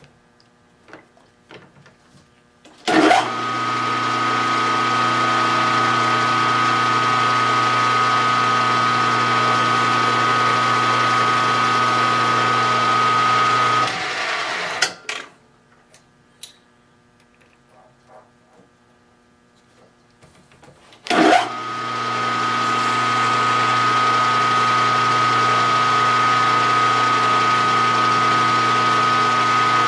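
Milling machine spindle motor switched on with a sharp clunk, running with a steady hum and high whine while drilling holes in a steel flywheel blank. It shuts off about 14 seconds in, a few knocks follow, and it starts again with another clunk about 21 seconds in.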